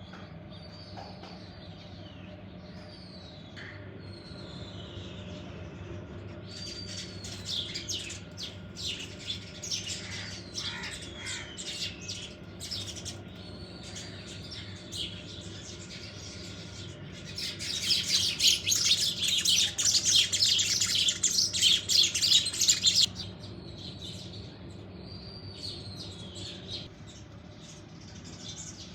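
Birds chirping and calling: short whistled calls that slide downward in pitch, then dense, rapid chirping. The loudest part is a burst of fast chattering chirps lasting about five seconds, a little past the middle.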